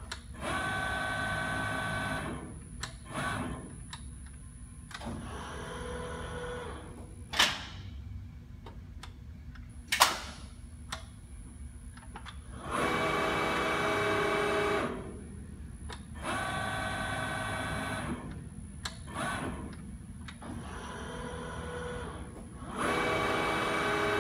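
Schroeder SPB 3200/3 CNC hydraulic folding machine working through a fold cycle: its drives whine in five runs of about two seconds each over a low steady hum. Two sharp clacks from the machine come in the middle.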